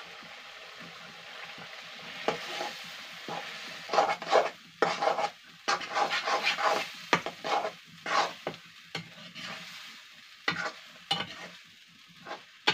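Potatoes sizzling in hot masala in a metal pan, with a metal ladle stirring and scraping against the pan in quick strokes from about four seconds in.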